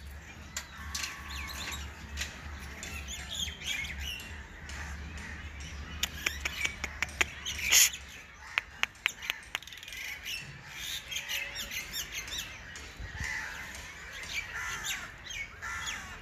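Birds chirping and squawking on and off. A quick run of sharp clicks comes about six seconds in and lasts about three seconds.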